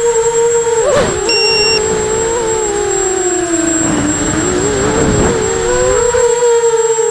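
Brushless motors of an Eachine 250 Racer quadcopter whining steadily, the pitch splitting into several tones that dip and rise again as the motors change speed through manoeuvres. A brief high beep sounds about a second in.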